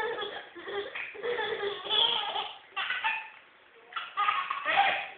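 Baby laughing hard in several bursts, with a short pause a little past three seconds in.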